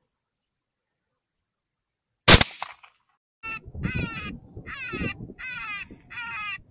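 A single rifle shot about two seconds in, with a short tail. About a second later a string of harsh repeated calls follows, each one falling in pitch, about two a second.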